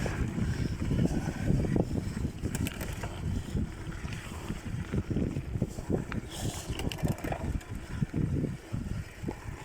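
Wind buffeting the phone's microphone over the rolling noise of a bicycle being ridden; no distinct brake or bearing whistle stands out.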